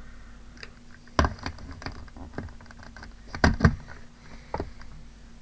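Scattered light taps and clicks of small craft materials and tools being handled on a work table, loudest in a close pair of knocks about three and a half seconds in, over a faint steady hum.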